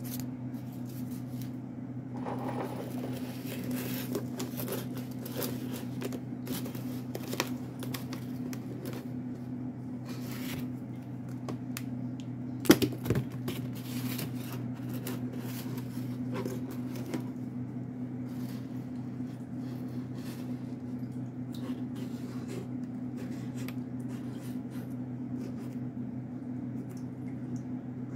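A plastic milk-jug planter being handled, with blue painter's tape pressed on and a marker scratching out a label on it, over a steady low hum. One sharp click stands out about 13 seconds in.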